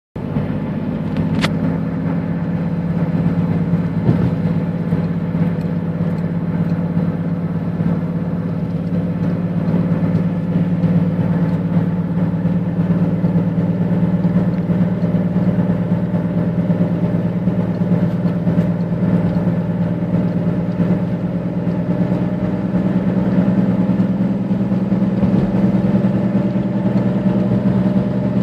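Lexus IS300 driving at steady speed: a constant low drone of engine and road noise, with a faint steady high-pitched squeal. The owner traces the squeal to the front passenger wheel; it appears once the car is warm, between about 15 and 40 mph.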